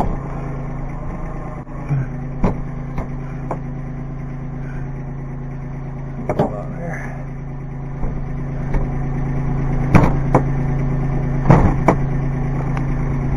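Kubota B2320 compact tractor's three-cylinder diesel running steadily, getting louder about eight seconds in, with several sharp knocks and clunks as the front loader works.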